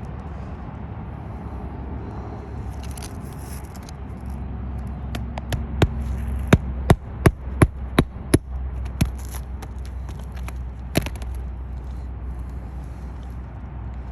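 Sharp knocks in a quick, regular run of about three a second for a few seconds, then one more knock a little later, over a steady low rumble. They fit fasteners being driven during roof repair work.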